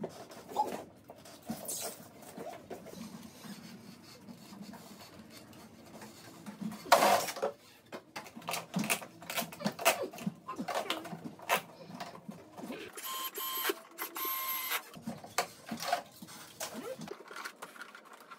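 Electrical cable being handled and fed into a flexible plastic conduit: irregular rustling, scraping and clicking knocks, with a louder scrape about seven seconds in. A brief steady high tone sounds about two thirds of the way through.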